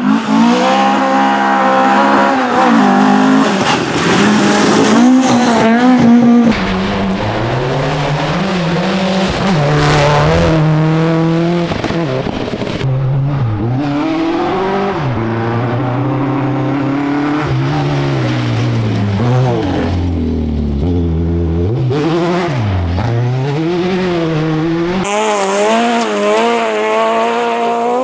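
Rally car engines on a gravel stage, revved hard, the pitch climbing through each gear and dropping at every shift or lift. Tyres hiss and crunch on loose gravel underneath. The sound changes abruptly a few times as it moves from one car to the next.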